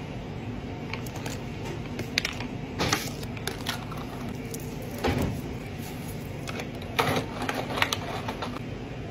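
Iced drink being handled in a clear plastic cup: ice clinks, a plastic lid is pressed on, then a straw is pushed through it. These make a scattered series of sharp clicks and clatters, with the loudest around the middle and near the end, over a steady background hum.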